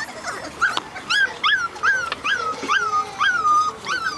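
Four-week-old Portuguese Water Dog puppies whimpering: a run of about ten short, high whines, each rising then dropping in pitch, two or three a second.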